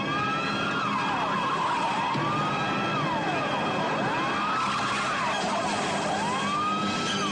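Militia car siren wailing in a repeating cycle: the pitch rises, then falls, about once every two seconds, over the noise of the speeding car.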